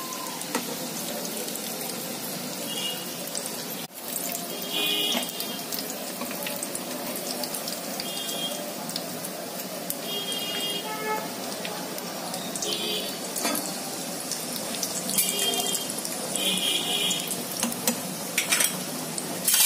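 Samosas deep-frying in a pan of hot oil: a steady sizzle of bubbling oil, with short high-pitched chirps every couple of seconds.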